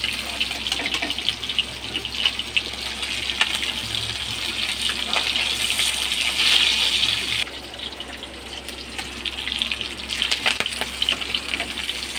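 Fish frying in hot oil in a metal kadai: a steady sizzle with scattered crackles and the clicks of a metal spatula against the pan as the pieces are lifted out. The sizzle drops off noticeably about seven and a half seconds in.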